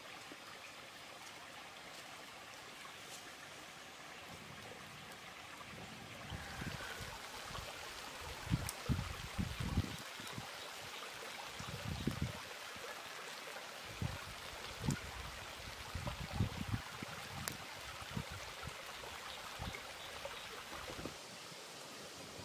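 Stream running over rocks, a steady rushing water noise that grows louder about six seconds in. Irregular low thumps sound over it through the middle, the loudest around nine and twelve seconds in.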